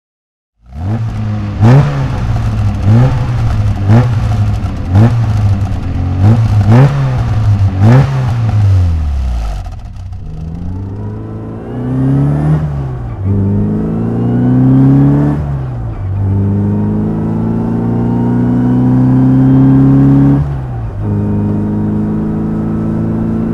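Mini Cooper S's four-cylinder engine blipped about once a second, each rev rising and falling with a sharp crack at its top. After about ten seconds it accelerates through the gears: the pitch climbs and drops sharply at three gear changes, then holds steady.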